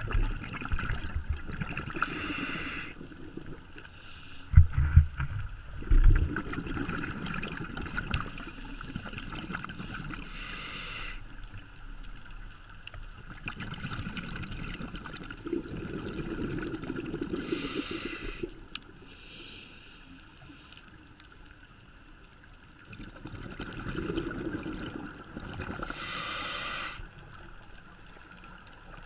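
Scuba diver breathing through a regulator underwater: a burst of exhaled bubbles about every eight seconds, four times.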